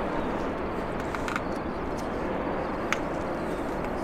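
Steady, even noise of a jet airliner's engines, with two faint clicks, one a little over a second in and one near the end.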